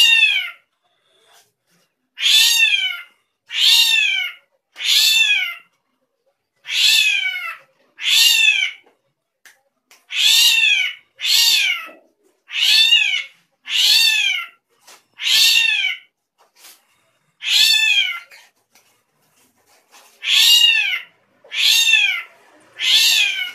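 A drongo (srigunting) giving a long series of cat-like mewing calls, about fifteen in all. Each call lasts under a second and arches down in pitch. The calls come about one every second or so, with a longer pause about two-thirds of the way through.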